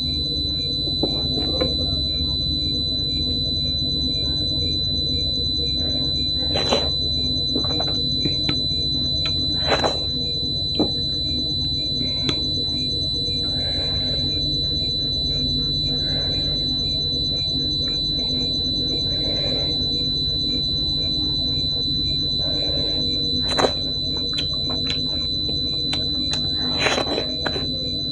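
Eating by hand at close range: fingers mixing and squishing dhido with chicken curry, with chewing and mouth sounds and a few sharp clicks, over a steady high-pitched whine and a low hum.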